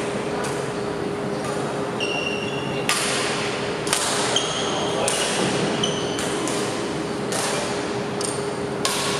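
Badminton rackets striking a shuttlecock in a rally, sharp cracks about once a second, with short high squeaks of court shoes on the wooden floor. A steady hum of the large hall runs underneath.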